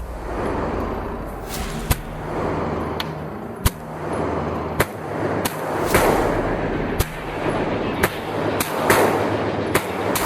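Gunshots on a shooting range: about ten sharp reports at roughly one-second intervals, each with a short echoing tail.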